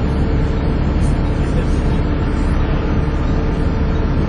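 Volvo B7TL double-decker bus's straight-six diesel heard from inside the bus, running steadily with a held whine over the low engine rumble, the 'hoover' sound these buses are known for.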